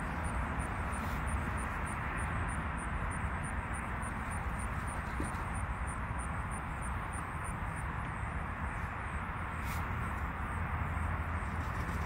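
Steady outdoor background rumble and hiss with no distinct events, like distant traffic, with a faint regular high ticking through most of it.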